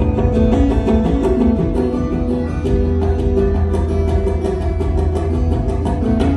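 Steel-string acoustic guitar played fingerstyle and amplified, a steady flow of plucked notes and ringing chords over a continuous low drone.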